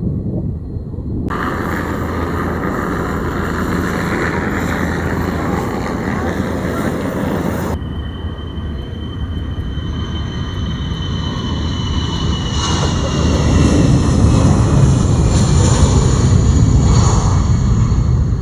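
Lockheed Martin C-130J-30 Hercules turboprop engines and propellers at takeoff power: a loud, steady drone with a high whine that slowly falls in pitch as the aircraft passes, growing louder in the second half.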